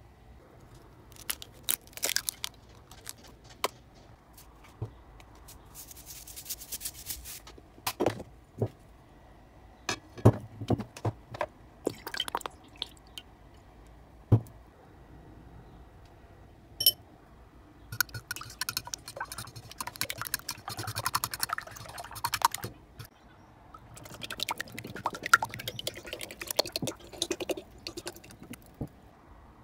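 Kitchen food-preparation handling sounds: scattered sharp knocks and taps in the first half, then two longer stretches of quick clattering.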